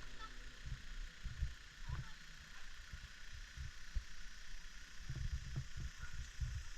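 Faint outdoor ambience: irregular low rumbles and thumps over a steady soft hiss.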